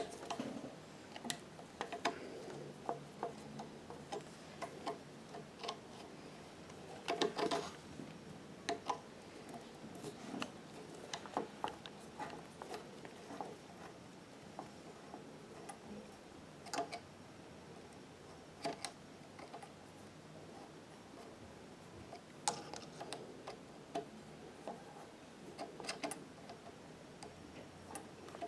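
Scattered metallic clicks and ticks from an industrial sewing machine's needle, feed dog and rotary hook mechanism as it is turned slowly by hand, with a short cluster of rattling clicks about seven seconds in.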